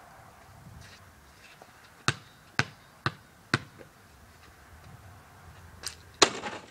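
A basketball dribbled four times on a concrete driveway, about two bounces a second, then a free throw hitting the hoop a little after six seconds in with a short, loud rattle.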